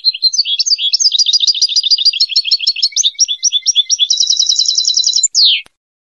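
A small cage finch singing a fast run of quick, varied chirping notes. It closes with an even, rapid trill and a falling note, then breaks off abruptly.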